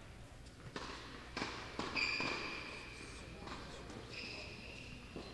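Tennis ball knocks: three sharp hits or bounces in quick succession, followed by two held high-pitched squeals of about a second each, one mid-way and one near the end.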